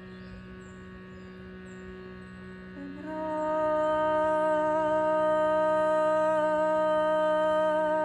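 Shrutibox drone sounding steadily; just before three seconds in, a woman's voice comes in over it, sliding briefly up into one long held sung note.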